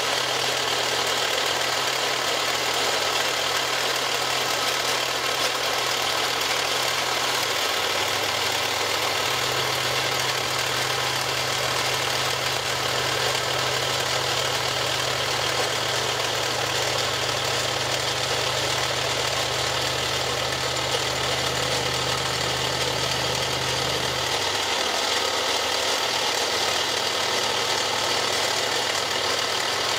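Milling machine running, its end mill cutting a block of polyethylene and throwing off chips, with a steady low hum that shifts slightly about a quarter of the way in and drops out well before the end.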